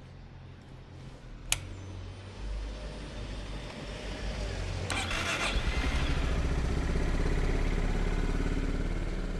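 Honda GB350's single-cylinder engine starting about two seconds in and settling into a steady low, pulsing run, growing louder; a sharp click comes just before it.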